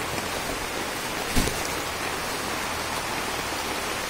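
Heavy rain falling steadily on forest leaves and grass, an even hiss, with one short thump about a second and a half in.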